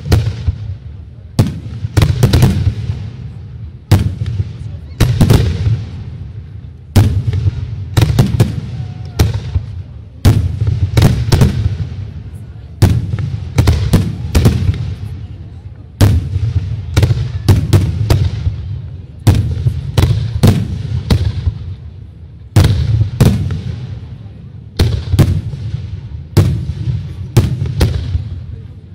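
Aerial firework shells bursting in quick succession, a loud sharp bang every second or so, often two or three close together, each followed by a low rumbling echo that fades before the next.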